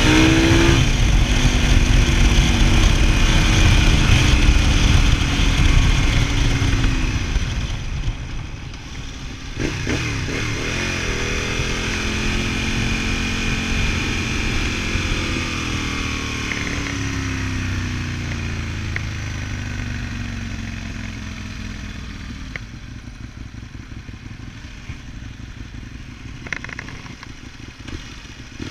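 V-twin motorcycle engine heard from a camera mounted on the bike, with a hiss of wind and road noise. The engine pitch climbs under throttle, dips briefly about eight seconds in, and picks up again. It then falls slowly and grows quieter toward the end as the bike slows.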